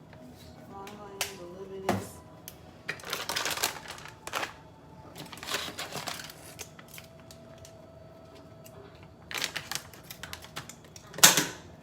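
Kitchen handling noises: sharp clicks and clatter with four short rustling bursts as seasoning containers are handled and the seasoning is shaken out. The loudest burst comes near the end.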